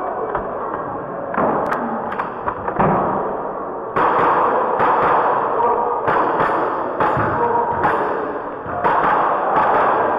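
Gas-blowback airsoft pistol firing a string of shots, starting about four seconds in, mixed with handling and movement noise.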